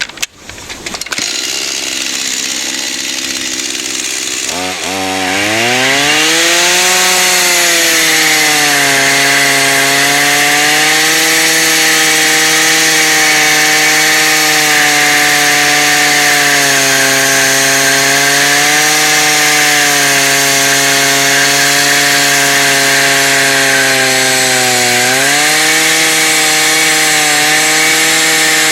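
Two-stroke chainsaw engine driving an angle-grinder attachment. It runs slowly at first, revs up about five seconds in, and then holds a high, steady speed with a loud hiss over the engine note. The speed dips briefly near the end and picks up again.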